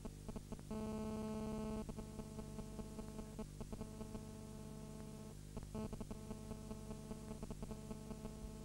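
Steady electrical buzz over mains hum, with irregular crackling clicks. The buzzing tone is louder for about a second near the start, then weaker.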